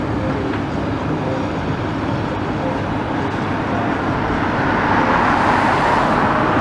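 Road traffic noise, a steady rumble from passing vehicles. Near the end a car passes close by and its tyre and engine noise swells.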